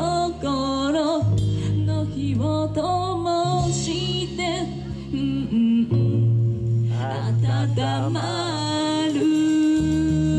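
A live rock band performing a song with a lead singer: a wavering sung melody over sustained low notes that shift every second or two.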